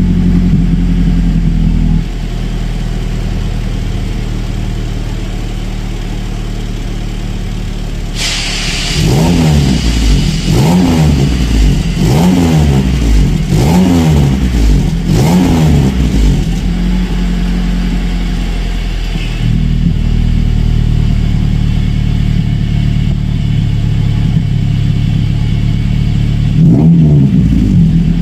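Car exhaust at the tailpipe, fitted with a manually worked valve made from a used throttle body. The engine idles, drops suddenly in level about two seconds in, then is blipped through a string of six or so quick revs, settles back to idle, and revs again near the end.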